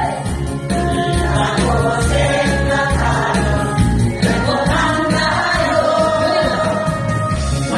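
A group of older women singing together as a choir over backing music with a steady beat.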